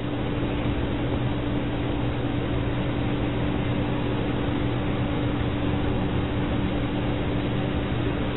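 Vacuum cleaner running steadily: a constant rush of air over a low motor hum.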